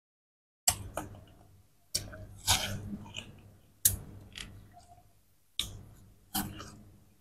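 Someone biting into and chewing watermelon: about six crisp crunches, each trailing off quickly.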